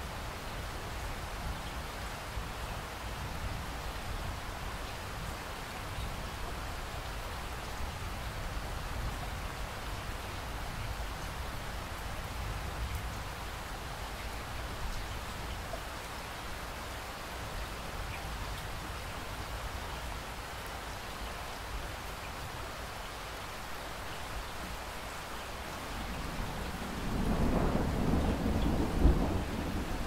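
Steady rain falling, with a low rumble of thunder under it that swells into a louder roll near the end.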